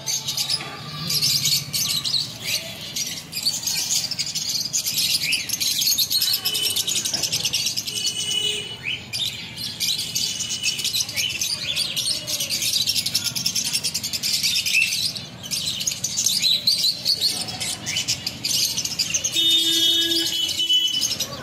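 Birds chirping, a dense and continuous run of rapid high chirps, with a few short held notes about eight seconds in and again near the end.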